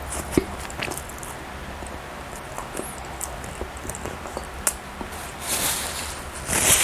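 Close-miked eating of soft bread: chewing with small wet mouth clicks and one sharper click about half a second in, then a louder crackly rustling near the end.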